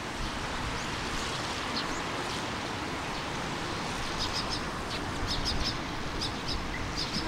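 Steady outdoor hiss of wind and background noise, with small birds chirping in quick runs of three or four high notes from about four seconds in.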